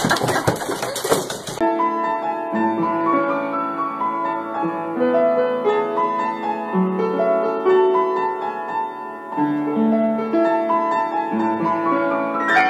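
Solo piano music playing a slow melody with held chords, after a brief burst of noisy clatter in the first second and a half.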